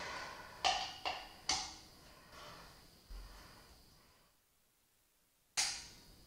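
Sharp metallic cracks from a T-handle hex key turning threadlocked brake rotor bolts, as the Loctite seal on each bolt breaks and it cracks loose. Three come in quick succession about a second in, and a fourth comes near the end.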